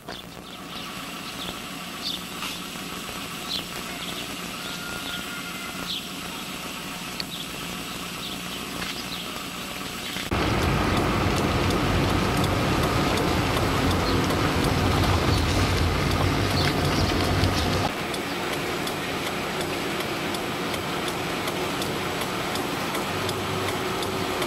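Motor vehicle running, a steady engine and road rumble that grows louder for several seconds midway and then eases off.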